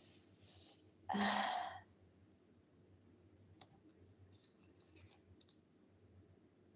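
A short breathy sound about a second in, then a scatter of faint small clicks as the screw cap of a plastic water bottle is handled.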